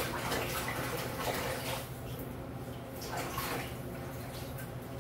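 Water splashing and swishing as boiled wheat noodles for milmyeon are rinsed by hand in cold and ice water in a sink, over a steady low hum.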